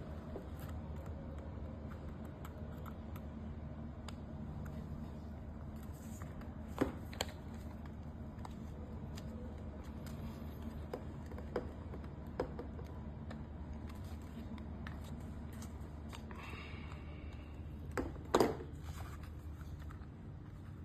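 Small hand tools and plastic parts of a remote control car being handled: scattered clicks and a short scrape, the loudest a pair of clicks near the end, over a steady low hum.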